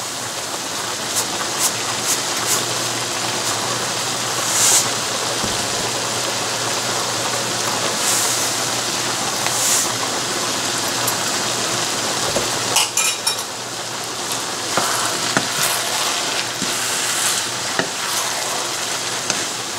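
Minced chicken, vegetables and pasta sizzling as they fry in a nonstick pan, over a steady low hum that stops about two-thirds of the way in. Around 13 seconds in there is a short clatter, then a wooden spatula stirring and scraping through the food against the pan.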